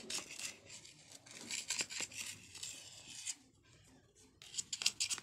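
Metal knife blade scraping and cutting along the edge of a disc of damp clay: a series of short, scratchy strokes, with a lull of about a second after the middle before a few more strokes near the end.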